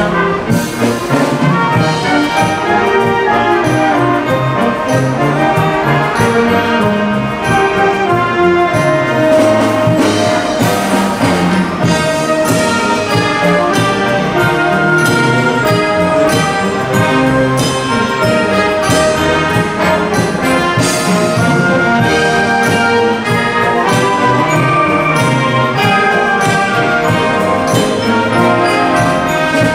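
Concert band playing live: flutes, saxophones and brass carry a sustained melody and chords over regular percussion strokes, at a steady full level.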